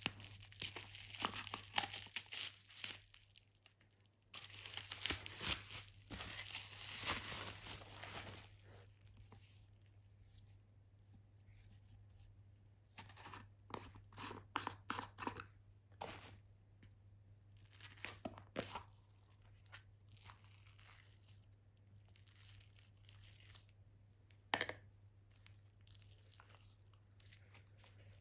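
Plastic bubble wrap crinkling and tearing as it is cut with scissors and pulled off a plastic slime tub, densest in the first eight seconds, then in scattered bursts. A sharp click comes about 24 seconds in, and near the end there is soft squishing as fluffy slime is pulled out of the tub.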